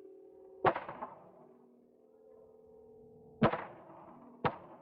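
Three gunshots: one about half a second in, then two about a second apart near the end, each sharp crack followed by a short echoing tail, over a faint steady hum.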